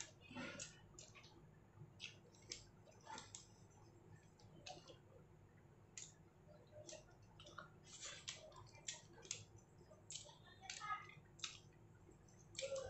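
Faint, irregular clicks and crinkles of fingers picking rice off a paper food wrapper while eating by hand, with soft mouth sounds of chewing.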